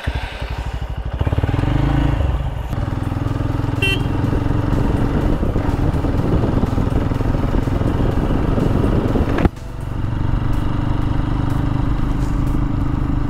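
Motorcycle engine ticking over, then pulling away about a second in and running steadily as the bike rides along. About nine and a half seconds in there is a sharp click and a brief drop in the engine sound before it picks up again.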